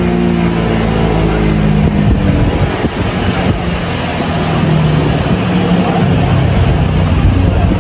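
Motorcycle engine running on a chassis dynamometer. Its note falls away in the first moments, then it runs on at a steady, loud level.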